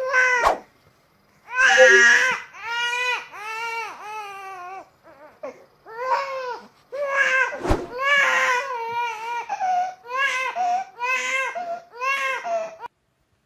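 Infant crying in a run of short, repeated wails, each rising and falling in pitch, stopping shortly before the end. A single sharp knock sounds about halfway through.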